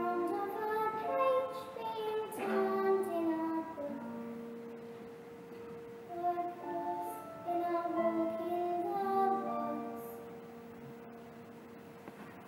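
A child singing a slow, gentle musical-theatre song over a theatre orchestra, in two phrases of held notes, fading away near the end.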